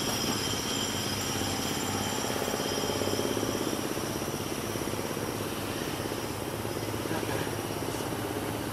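Honeybees buzzing in numbers around an opened hive, a steady drone of many wingbeats.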